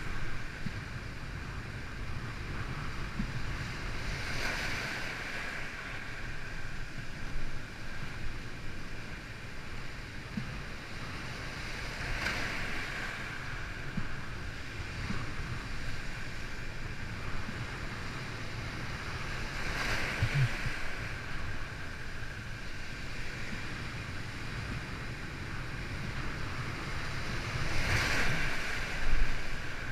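Wind buffeting the microphone over the steady rush of water and surf, with the wash of breaking waves swelling up about every eight seconds.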